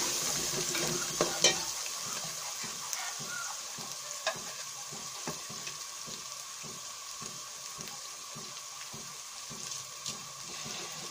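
Sliced onions and garlic paste sizzling in hot oil in a steel pot. A steel ladle scrapes and clinks against the pot for about the first second and a half, then the frying goes on as a steady sizzle with an occasional small click.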